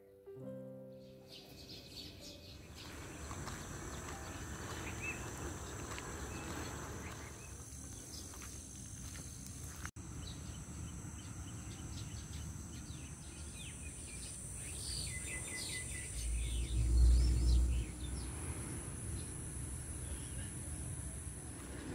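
Outdoor morning ambience with small birds chirping and a steady high-pitched drone, after a few piano notes fade in the first second. A low rumble rises to be the loudest sound near the end.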